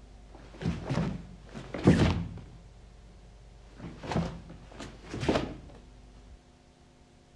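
A karateka performing a kata: short, sharp swishes and snaps of the uniform and thuds of bare feet on the floor with each punch and step, about five in all, the loudest about two seconds in.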